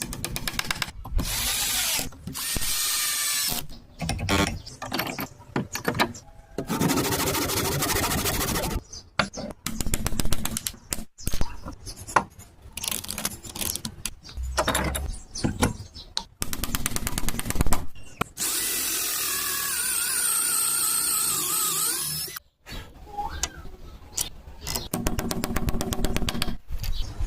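Power tools working wood, heard in a quick series of short clips that cut abruptly from one to the next. About two-thirds of the way in, a motor whine wavers up and down in pitch for a few seconds.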